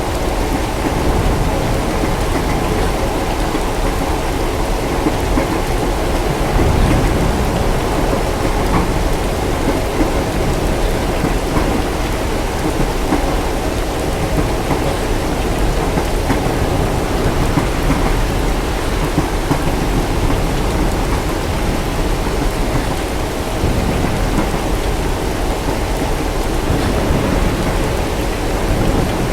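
Steady heavy rain with low rolling thunder and a constant low rumble beneath, the thunder swelling about seven seconds in.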